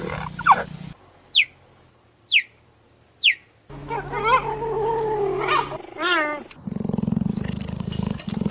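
Cheetah vocalising: three short, high-pitched chirps, each falling in pitch, about a second apart, then longer wavering calls and a low pulsing purr near the end.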